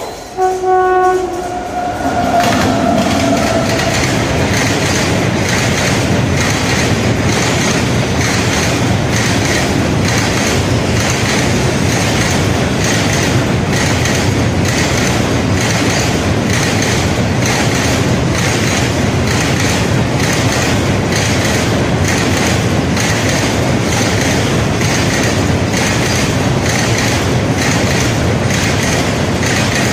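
Freight train, a WAG-9 electric locomotive hauling BTPN tank wagons, passing at speed. The locomotive's horn sounds a multi-tone chord in the first couple of seconds and drops in pitch as it goes by. Then comes a loud steady rumble of the wagons with a regular clickety-clack of wheels over the rail joints.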